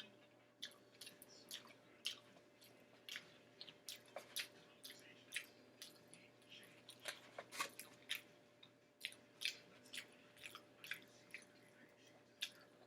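A person chewing a mouthful of chicken birria taco, with faint, irregular wet mouth clicks and smacks, a few per second.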